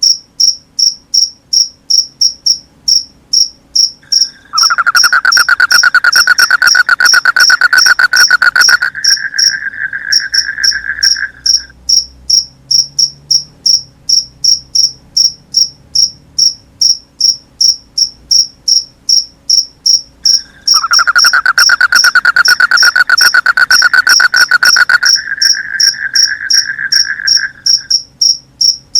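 Crickets chirping in a steady, high-pitched rhythm of about three chirps a second. Twice, a louder, lower-pitched rattling trill joins in for about seven seconds and fades into a steady buzz before stopping.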